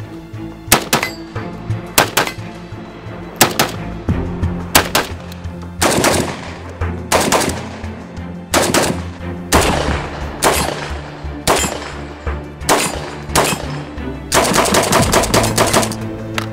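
Shots from a Krebs Custom AK103K-S, a short-barrelled 7.62x39 AK carbine, fired semi-automatically about once a second, then a quick string of shots near the end. Background music plays under the gunfire.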